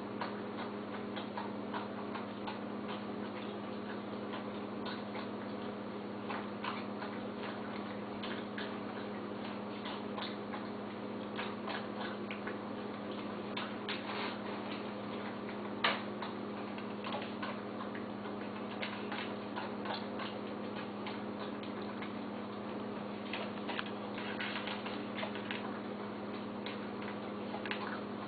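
A dog eating from a dish: many small irregular clicks and crunches, with one sharper click about halfway through, over a steady low electrical hum.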